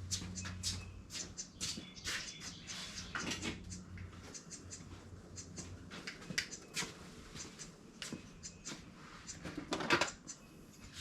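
Irregular metallic clicks, snips and scrapes as tin snips are worked on a piece of thin sheet-metal fender stock, with a louder cluster about two to three seconds in and another near the end.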